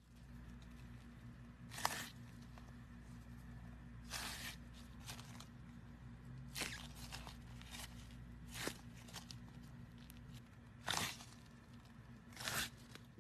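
Glossy glitter slime pressed, poked and stretched by hand, giving sharp crackling pops every couple of seconds over a steady low hum.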